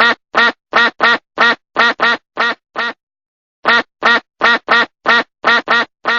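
Duck quacking: two runs of short quacks, about three a second, with a pause of nearly a second between the runs.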